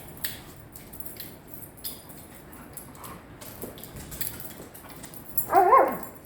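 A dog gives a short whining cry near the end that wavers in pitch and then drops away. Faint scattered clicks and ticks come before it.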